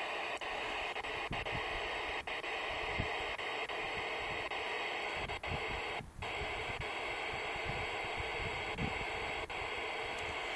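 Static hiss from a Yaesu portable transceiver's speaker: the steady noise of an open squelch with no signal coming in, with faint clicks and a brief dropout about six seconds in.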